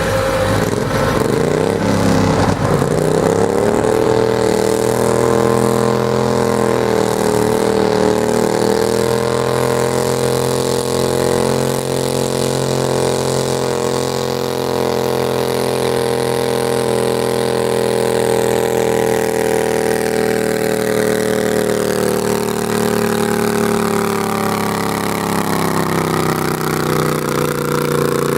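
Garden tractor engine running hard at high, steady revs while pulling the weight sled. The pitch climbs in the first few seconds, holds, then sags a little near the end as the load builds.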